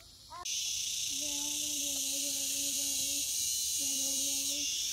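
Insect chorus shrilling steadily, cutting in abruptly about half a second in. Twice over it comes a held, steady-pitched hum.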